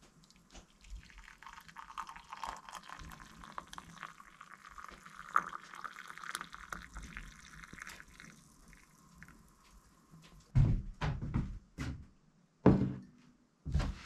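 Coffee poured from a stainless steel stovetop percolator into a ceramic mug: a steady trickling stream for about eight seconds that fades out. Near the end come several loud, short thumps.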